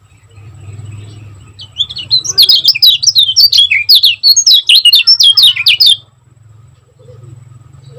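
Kecial kuning songbird singing a fast, tightly packed run of high chirping notes, many of them short falling slurs. The run lasts about four seconds, starting about two seconds in. A faint steady low hum lies underneath.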